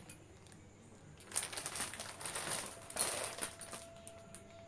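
Plastic packaging crinkling and rustling as a wrapped handbag is handled, starting about a second in after a short quiet spell.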